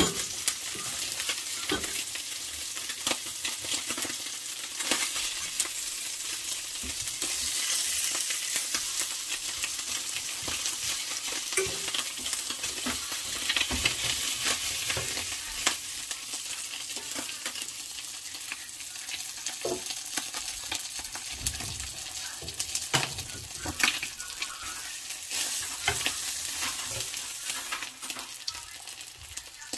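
Hot oil sizzling and crackling in a frying pan: a steady hiss with many small pops, growing quieter near the end.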